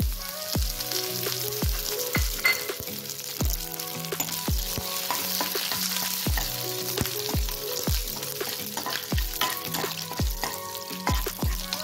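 Curry leaves, dried red chillies and mustard seeds sizzling in hot oil in a nonstick kadai with many small pops, stirred with a steel ladle: a tempering (tadka) frying. Background music with a steady beat plays underneath.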